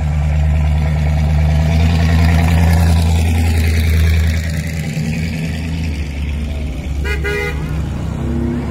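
Classic cars passing slowly one after another, their engines running with a low, steady hum that is loudest in the first half. A short car horn toot sounds about seven seconds in.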